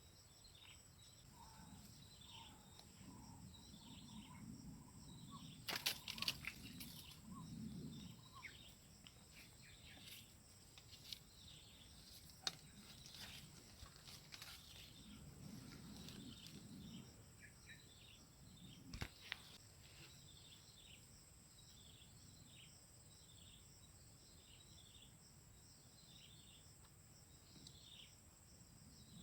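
Faint outdoor ambience: many short, falling bird chirps repeating throughout over a steady high insect drone, with a few sharp clicks and some low rustling.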